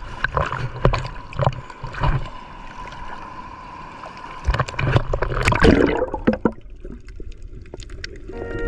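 Seawater splashing and sloshing around a camera at the surface as a swimmer moves through the waves, with a big splash about five and a half seconds in. The camera then goes under the water and the sound turns to a muffled underwater rumble.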